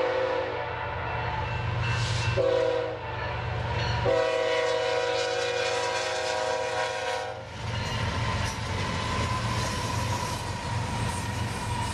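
BNSF diesel locomotive's multi-chime air horn sounding the end of the grade-crossing signal: a long blast that ends about half a second in, a short blast about two seconds in, then a long blast of about three seconds. After that the locomotives pass close by with a steady rumble of engines and wheels on the rails.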